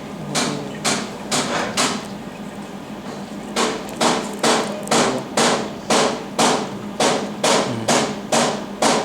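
Pulsed jewelry laser welder firing repeatedly, about two sharp snaps a second, with a pause about two seconds in. A steady low hum runs underneath.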